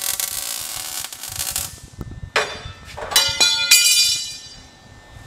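Welding arc crackling steadily as steel is welded onto a truck frame's C-notch, cutting off after about a second and a half. Then about three sharp metallic clanks, each ringing on briefly like struck steel.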